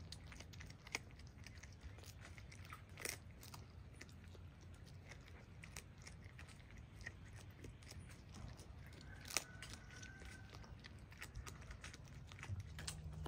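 A fox chewing and crunching food picked from wood-chip mulch: faint, scattered crunches and clicks, with a few sharper clicks, the loudest about nine seconds in.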